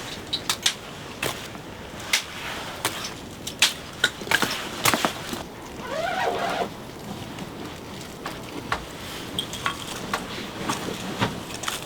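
Irregular clicks and knocks at an uneven pace, with a short pitched sound that rises and falls about six seconds in.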